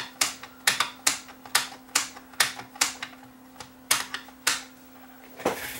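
The Commodore 2002 monitor's front composite / separate / RGB selector switch being clicked back and forth over and over, about two sharp clicks a second with a short pause partway, working freshly sprayed contact cleaner into its dirty contacts, the cause of the picture instability.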